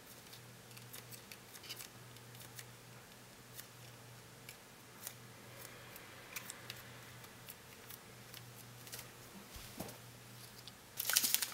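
Faint crinkling and small clicks of a small plastic sachet of chocolate sauce being squeezed and handled over a plastic candy-kit tray, with a steady low hum underneath. The handling noise grows louder just before the end.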